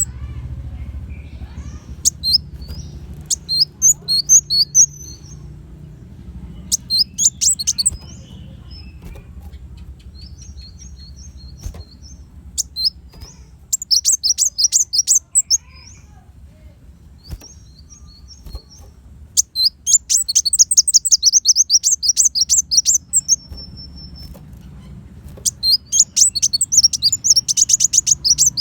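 Kolibri wulung sunbird singing in repeated bursts of fast, high chirps and rapid trills, with short pauses between phrases; the longest, loudest runs come about two-thirds of the way through and near the end. A faint low hum lies underneath.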